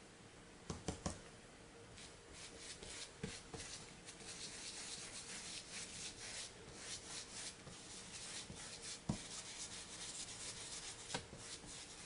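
Stencil brush wiping and dabbing paint through a stencil onto a floor: a run of quick, faint, scratchy bristle strokes beginning about two seconds in, with a few light knocks scattered through.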